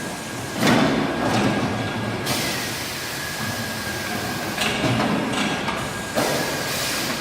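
Automatic shrink-wrap packaging machine with carton feed running through its cycle. A steady whine sits under it, and three times it gives a sudden clattering, hissing surge: about half a second in, near the middle, and near the end.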